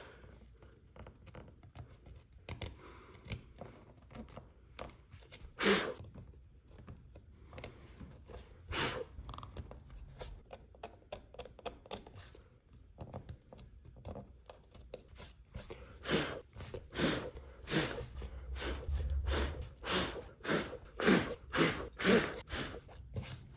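A small pointed hand tool scraping and picking in the freshly routed engraving of a bamboo cutting board to clean it up, in scattered short strokes. From about two-thirds of the way in come quicker scraping and brushing strokes, about two a second.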